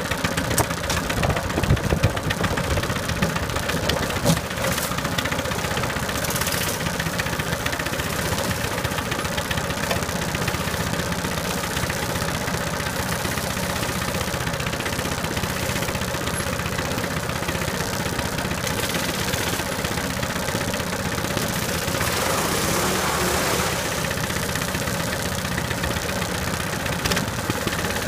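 Small engine idling steadily, with a few sharp knocks in the first few seconds.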